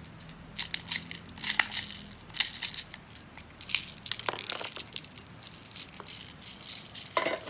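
Plastic airsoft BBs clicking and rattling as they are pushed from a clear speedloader into a spring airsoft pistol's metal magazine. The sharp clicks come in quick runs for about the first three seconds, then more sparsely.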